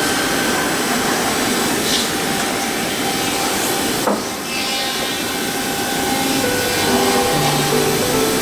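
Large CNC milling machine cutting a wood pattern: a steady, dense hiss of the cutter milling through wood, with a single knock about four seconds in.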